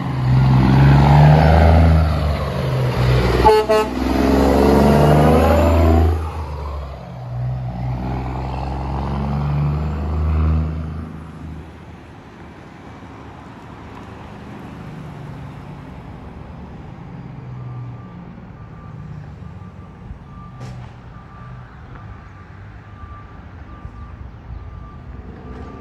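Straight-piped semi truck's diesel engine pulling away loudly, with a short horn toot about three and a half seconds in. The engine drops off at a shift around six seconds, pulls hard again, then fades away from about eleven seconds on, leaving a faint traffic hum.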